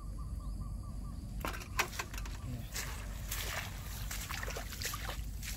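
Footsteps and rustling through wet grass and mud on a pond bank, irregular crackles and squelches starting about a second and a half in, over a low steady rumble.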